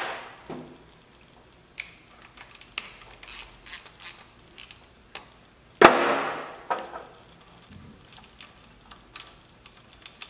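Hand tools and bolts working at the ignition body plate on a 1954 Victoria Bergmeister V35 engine while its bolts are pulled out: scattered small metal clicks and taps, with one sharp metal clank about six seconds in that rings away over about a second.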